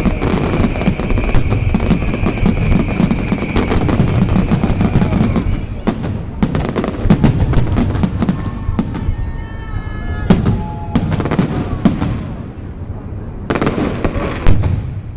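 Fireworks going off: a dense run of rapid bangs and crackles for about six seconds, then scattered bangs, and another quick cluster near the end.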